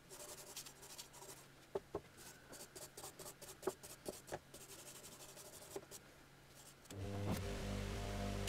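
A hand wire brush scrubbing rust off a rusty lathe tailstock part in short, scratchy strokes, with a few sharp knocks. About seven seconds in, a louder steady sound takes over: music with a spinning buffing wheel.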